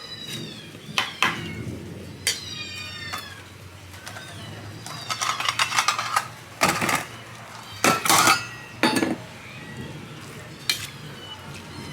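Cats meowing, with a couple of falling meows in the first few seconds, while cat-food cans, a spoon and feeding dishes clink and clatter, with a run of sharp clatters in the second half as wet food is dished out.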